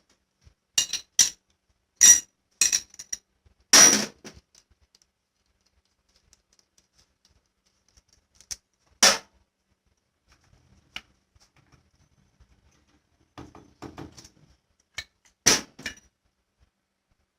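Irregular sharp metallic clinks and knocks, about a dozen, spread out with pauses between them, as of metal tools and parts being handled during a machine repair.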